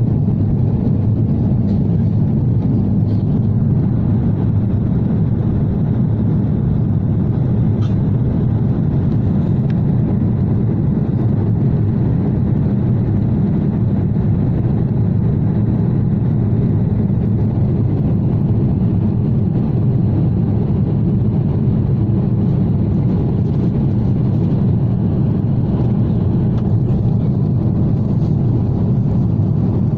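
Steady low rumble inside a jet airliner's cabin during the climb after takeoff, engine and airflow noise at an even level.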